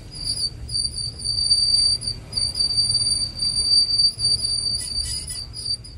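Horrible scraping squeal of a VW Polo's brake backing plate rubbing on the turning brake disc: a steady high tone that drops out briefly about two seconds in and flickers near the end, over a low rumble. The owner is almost certain the backing plate was bent slightly when the top mount was recently replaced.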